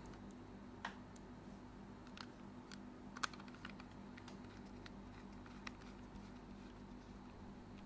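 Faint, scattered clicks and taps of a PS5 DualSense controller's plastic shell and parts being handled during reassembly, with a sharper click about three seconds in, over a low steady hum.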